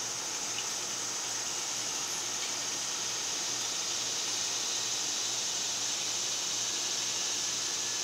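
Steady high-pitched drone of a summer insect chorus, even and unbroken.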